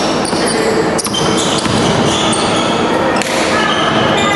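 Basketball players' sneakers squeaking in short chirps on the gym floor, with a ball bouncing now and then, echoing in a large gym.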